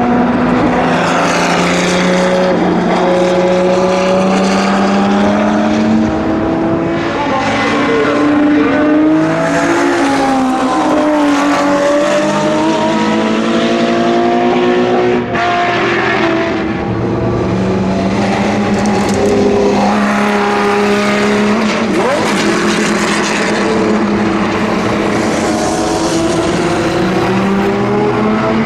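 Porsche 917's air-cooled flat-twelve engine at racing speed, its loud note repeatedly rising and falling as the car accelerates, changes gear and passes.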